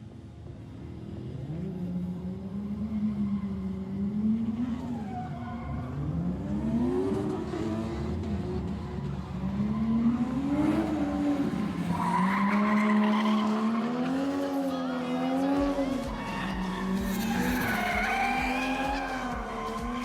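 Drift car's engine revving up and down over and over as it slides, with tyres squealing. It grows louder from about halfway through.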